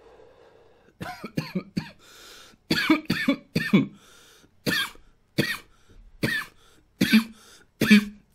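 A man exhaling a draw of cannabis vape vapour with a soft breath, then coughing hard about a dozen times in short clusters from about a second in.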